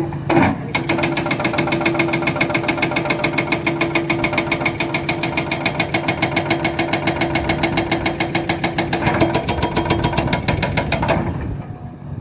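Hydraulic breaker on a Hidromek 300LC excavator hammering in a fast, even rapid-fire of blows, about nine or ten a second, over the steady hum of the machine. It starts about a second in and stops near the end.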